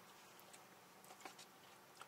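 Near silence: faint room tone inside a parked car, with a couple of very faint small ticks.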